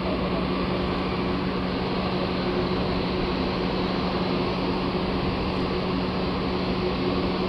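Jet aircraft engines running steadily, a constant rushing hum with a low steady drone underneath.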